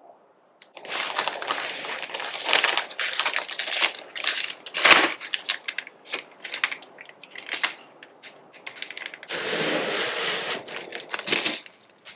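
Plastic being handled: irregular bursts of crackling and rustling with sharp clicks, starting about a second in. The loudest snap comes near the middle, and the crackling stops shortly before the end.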